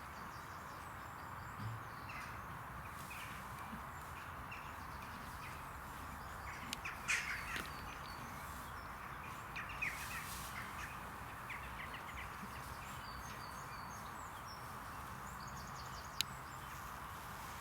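Crows cawing now and then, most clearly about seven and ten seconds in, with small birds twittering faintly over a steady background hiss. A single sharp click comes near the end.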